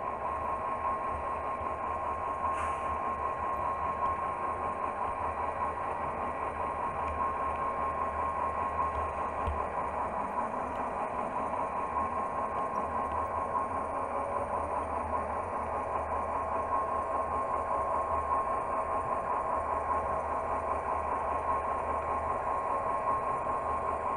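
Model railway freight train running steadily along the track, heard from on board: a constant mechanical hum with a steady high whine.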